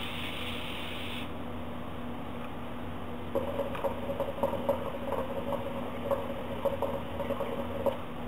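Water bubbling in the base of a 32-inch Khalil Mamoon hookah as a long draw is taken on the hose. It starts about three seconds in and lasts about four and a half seconds, a steady gurgle with irregular pops.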